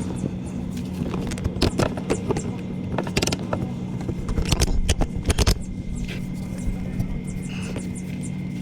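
A steady mechanical hum, with scattered clicks, knocks and scrapes of handling over it.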